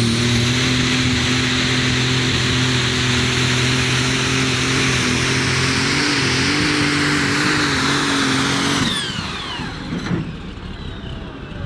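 A Superstock pulling tractor's turbocharged diesel engine running flat out on a pull, with a steady, loud engine note and a high turbo whine above it. About nine seconds in the throttle is shut, and the engine note and the whine fall away together.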